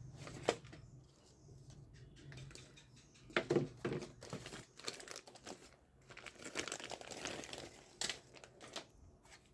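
Plastic packaging crinkling and rustling in bursts, with scattered sharp clicks and taps, as a boxed toy gun is unpacked.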